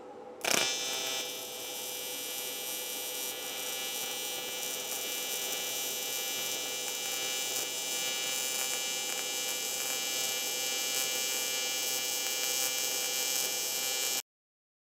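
AC TIG welding arc on aluminum buzzing steadily as filler rod is fed in. The arc strikes with a sharp crack about half a second in, and the buzz cuts off abruptly near the end.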